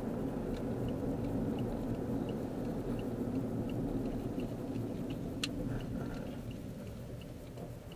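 Steady low road and engine rumble heard inside a moving car's cabin as it turns right, easing off toward the end. A faint ticking repeats about every two-thirds of a second, like a turn signal, and a single sharp click sounds about five and a half seconds in.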